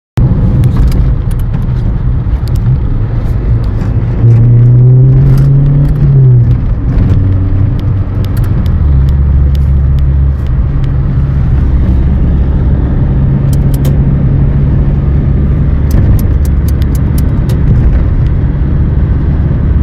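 Car engine and road noise heard from inside the moving car's cabin: a loud, steady low drone whose pitch changes about four seconds in and drops lower about nine seconds in.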